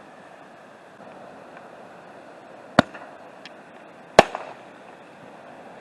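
Festival ball firework shell fired from a mortar tube. A sharp launch bang comes about three seconds in, then about a second and a half later the shell breaks with a slightly louder bang and a brief crackle.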